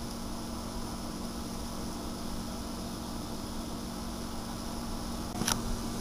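Steady low mechanical hum with a hiss over it, and a single short click near the end.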